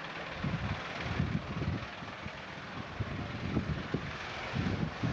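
Wind buffeting the microphone in irregular low gusts, over a steady background rush.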